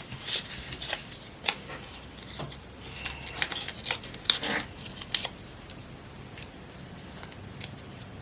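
Magazine paper being snipped and handled: a run of short, crisp snips and rustles that thins out after about five seconds.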